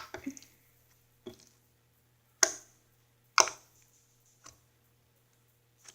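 Homemade glue-and-shaving-cream slime being squeezed and kneaded by hand, giving a string of short, sharp pops about a second apart, the two in the middle loudest.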